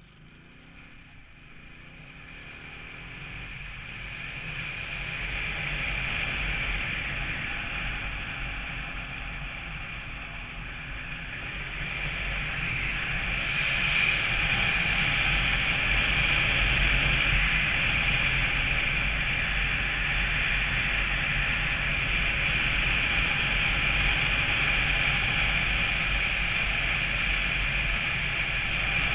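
Onboard driving noise of a road vehicle: wind rush and road rumble that grow steadily louder over the first dozen or so seconds as it gathers speed, then hold steady.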